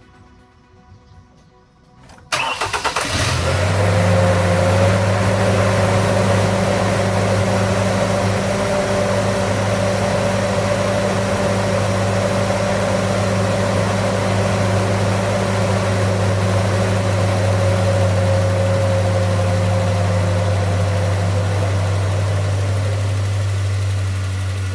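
2011 Ford Ranger engine starting about two seconds in, then idling steadily, run briefly after an oil change to circulate the fresh oil before the level is checked. The idle eases down slightly near the end.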